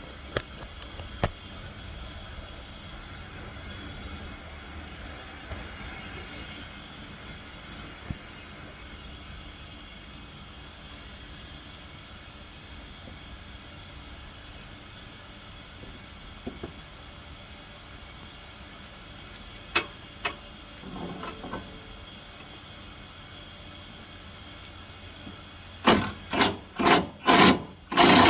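Hand work on the sawmill edger's bearing mount: a few small metallic clicks over a steady hiss, then near the end a quick run of about five loud scraping strokes, like rasping or rubbing on the shaft.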